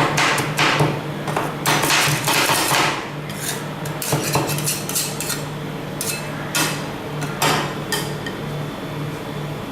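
Metal spatulas striking and scraping on a rolled-ice-cream cold plate: a quick run of clattering strokes for the first three seconds, then scattered single strikes, over a steady low hum.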